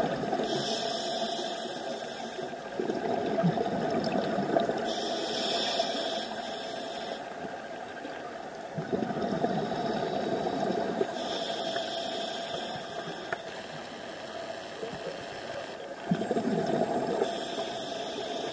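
Scuba diver breathing underwater through a regulator: four hissing inhalations a few seconds apart, each followed by a lower rush of exhaled bubbles, over a steady hum.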